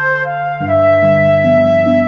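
Background music: a melody over sustained chords, with a bass note coming in just over half a second in.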